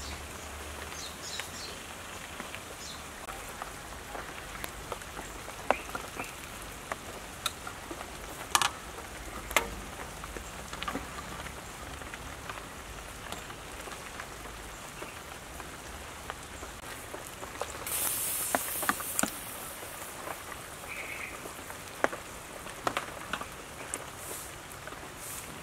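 Pot of noodle soup simmering, a steady bubbling hiss, with scattered sharp clicks of a metal ladle against the pot and a brief louder hiss about two-thirds of the way through.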